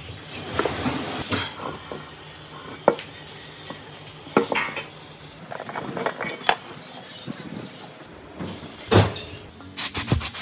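Spray gun hissing as it jets cleaning fluid over an engine's fan shroud, with clinks and knocks of metal parts being handled and one louder knock late on. Near the end, short sharp blasts from a compressed-air blow gun.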